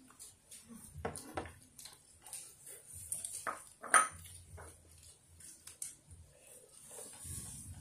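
Chopsticks tapping and clinking against ceramic rice bowls and plates during a meal: scattered light clicks, with one sharp ringing clink about four seconds in.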